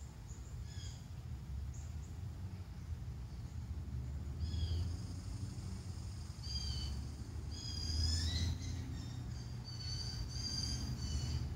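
Birds giving short, high calls, a few early on and several close together in the second half, over a steady low rumble.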